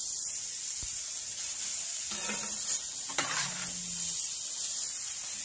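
Beef burger patties sizzling on a hot griddle plate over a charcoal grill: a steady frying hiss, with a few light knocks.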